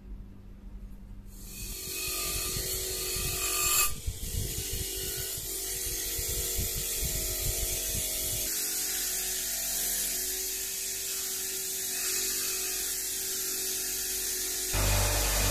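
Bench grinder running, its abrasive wheel grinding a curved metal knife part: a steady hiss of metal against the wheel over the motor's hum. It starts about a second in, and shifts to a louder, deeper hum near the end.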